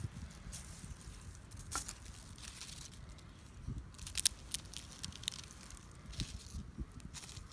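Knife blade scraping a fatwood stick, shaving off fine resinous scrapings in short, irregular scratchy strokes, with one sharper scrape a little past halfway.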